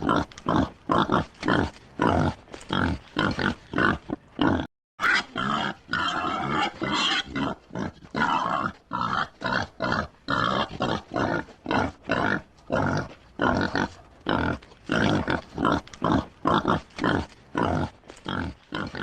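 Pigs grunting in a steady run of short grunts, about two or three a second. The sound cuts out briefly about five seconds in.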